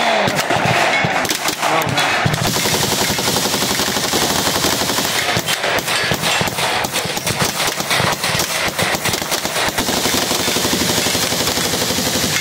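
Rapid, overlapping gunfire from several guns firing at once on a range, with fast bursts of fully automatic fire mixed with single shots, the reports following each other closely and without a break.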